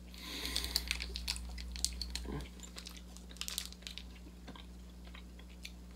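Faint chewing of a soft Hi-Chew fruit chew, with a soft rustle and small irregular clicks from a small wrapped candy being handled.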